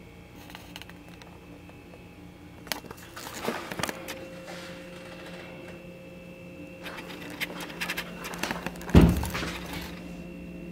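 Steady hum of a small room, with scattered knocks and clicks and one loud thump about nine seconds in.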